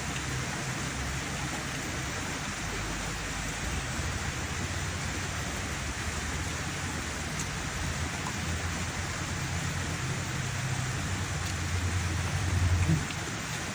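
Steady rain falling, an even hiss, with a low steady hum underneath and a brief louder low swell near the end.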